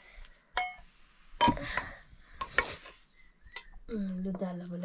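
Dishes and cutlery clinking and scraping, with sharp clinks about half a second, a second and a half, and two and a half seconds in. A voice speaks briefly near the end.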